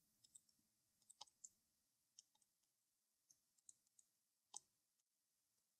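Faint, irregular clicks of a computer mouse and keyboard, about nine in all, the loudest a little before the end, over near silence.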